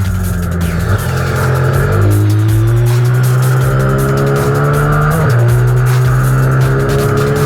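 Racing minibike engine running hard on track, its note climbing slowly under throttle and dropping sharply about two seconds in and again about five seconds in.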